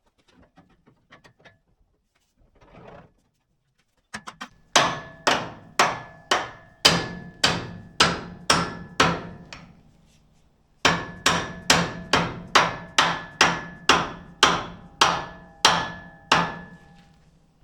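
Hammer striking steel parts of a wrecker's bed in two steady runs of ringing blows, about two a second: some ten blows, a short pause, then about a dozen more. A few light clicks and a rustle come before the first blow.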